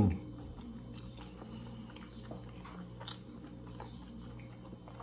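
Close-up chewing of sun-dried beef and rice with a full mouth: soft, wet mouth sounds with scattered small clicks, one sharper about three seconds in, over a low steady hum.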